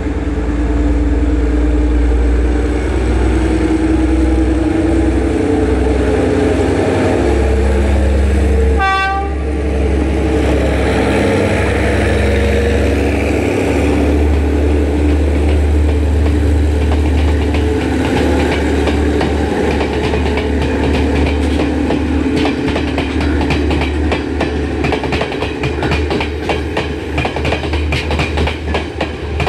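Sri Lanka Railways S10 diesel multiple unit pulling away, its diesel engine running with a steady low drone. There is one short horn blast about nine seconds in. From about two-thirds of the way through, the wheels click over the rail joints ever more quickly as the carriages roll past.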